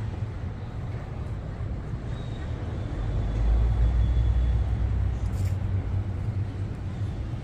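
Outdoor city street ambience: a steady low rumble of traffic that swells louder for a couple of seconds around the middle.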